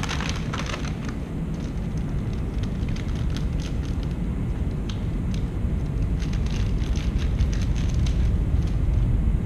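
Steady low rumble of workshop background noise, with light crinkling and rustling of a foil filament bag being handled near the start and again later on.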